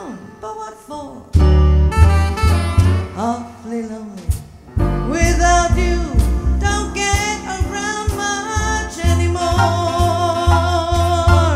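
Female jazz vocalist singing with a small live jazz band of saxophone, piano, bass and drums, with heavy ensemble hits on the low end. The song closes on a long held sung note with vibrato that stops together with the band near the end.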